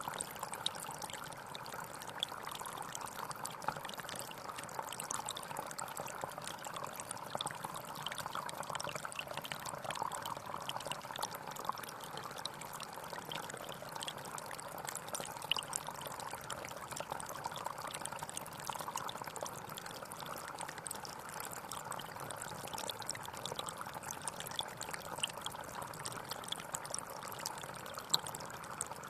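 Water pouring and trickling steadily into water, a continuous splashing with small droplet sounds scattered through it.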